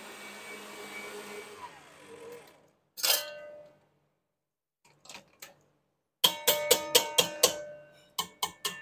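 Stand mixer's motor running, then winding down and stopping. A sharp metal clack and a few light clicks follow, then a quick run of about ten ringing metallic taps: the steel balloon whisk knocked against the stainless mixing bowl to shake off whipped cream.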